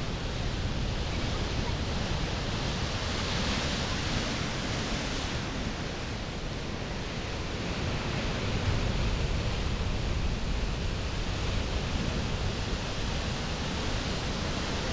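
Steady wind noise buffeting the microphone, a hissing rumble heaviest in the low end, with no distinct events.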